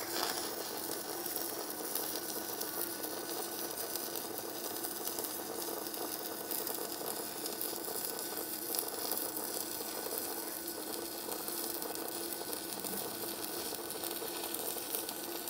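Arc200 inverter stick welder burning a 2.6 mm electrode at about 70 amps: a steady, even arc crackle and sizzle through one continuous weld run.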